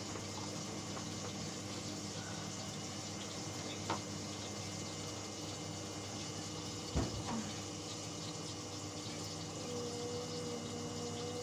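Indesit washing machine with water running into it, a steady rushing sound broken by two short knocks. A steady hum starts near the end.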